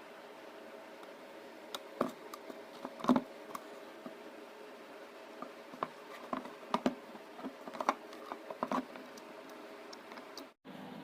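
Scattered small clicks and taps of parts and tools being handled, a few louder knocks among them, over a faint steady hum.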